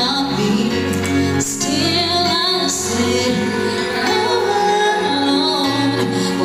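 Live band: a woman sings into a microphone over electric bass and keyboard, her held notes wavering with vibrato.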